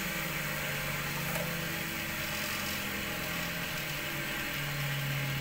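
Electric motor of a cotton candy machine running on with a steady hum, spinning the head after the heater has been switched off; the pitch of the hum shifts slightly a few times.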